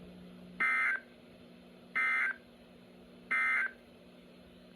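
Emergency Alert System end-of-message code: three short bursts of warbling two-tone SAME data, each about a third of a second long and just over a second apart, marking the end of the alert. A faint low steady hum fills the gaps between the bursts.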